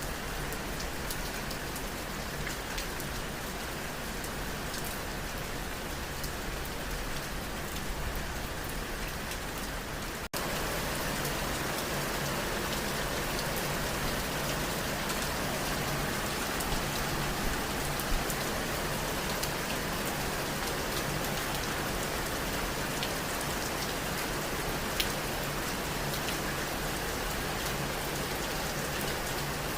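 Steady rain falling, with scattered individual drops ticking. About ten seconds in it cuts out for an instant and comes back a little louder.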